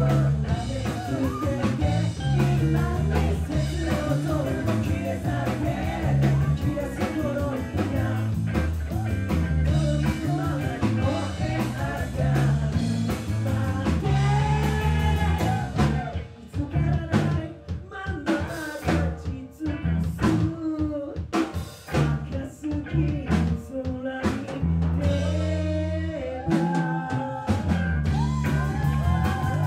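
Live rock band playing a funky song: drum kit, electric bass and guitar under a male lead singer. About halfway through, the band drops to sharp stop-time hits with short gaps between them, then comes back in full near the end.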